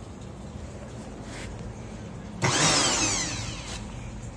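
Robot Coupe immersion blender's electric motor switched on in a short burst about two and a half seconds in, its whine falling in pitch as it spins down. This is a test run after the stuck on/off lock was repaired.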